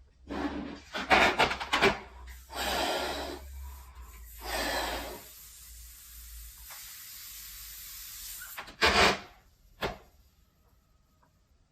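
A large latex balloon being blown up by mouth: about five hard, hissing breaths of air, each about a second long with short pauses between, and a sharp click near the end.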